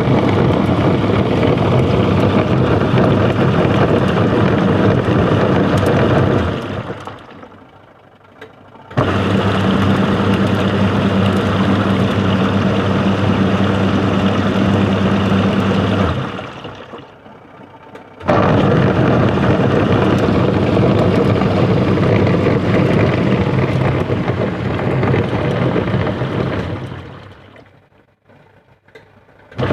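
Washing machine motor driving its gearbox with a loud, rough running noise and a low hum. It runs for about six to seven seconds, winds down to a lull and starts again, three times in all. The rough sound is the sign of a worn gearbox.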